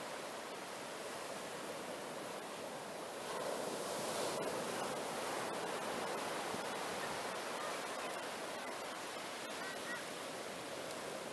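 Ocean surf breaking and washing up a sandy beach, a steady rushing wash that swells louder for a few seconds as a wave comes in about three seconds in.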